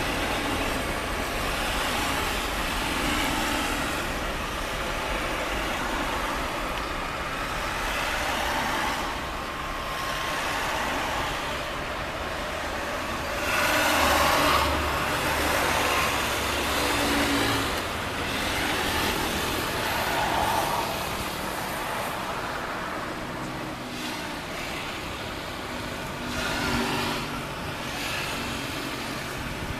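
Steady outdoor engine noise that swells louder about 14 seconds in, with smaller swells later.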